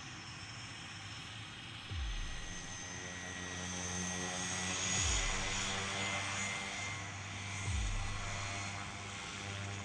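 Quest Kodiak's Pratt & Whitney PT6A turboprop running at low power on the ground, a steady propeller hum under a high turbine whine that swells in the middle. A few brief low thumps come every two to three seconds.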